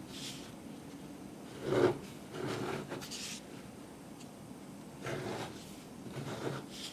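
Two small hard-plastic toy vending-machine candy dispensers being turned by hand and slid on a tabletop: a few short plastic scrapes and rubs, with a dull knock a little under two seconds in.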